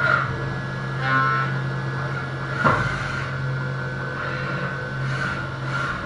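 Doosan CNC machining centre milling a 6082 aluminium plate: a steady machine hum with a constant higher tone, short whines from the cutter at the start and about a second in, and a sharp clunk about two and a half seconds in. Short bursts of cutting noise follow near the end.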